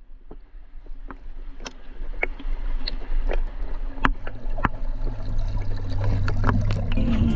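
Underwater reef sound picked up by a GoPro: a low rush of water that fades in, with scattered sharp clicks and crackles. A low steady hum joins about halfway through.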